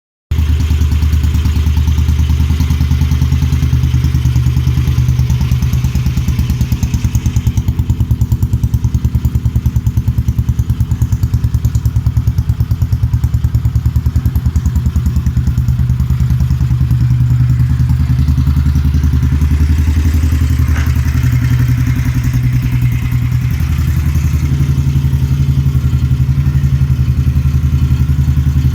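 Royal Enfield single-cylinder motorcycle engine idling through its exhaust, a rapid, even thump that holds steady with small shifts in pace.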